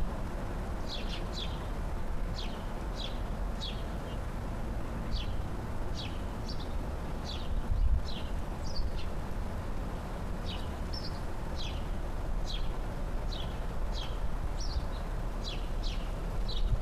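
Small birds chirping, about two short high chirps a second at an uneven pace, over a steady low outdoor rumble.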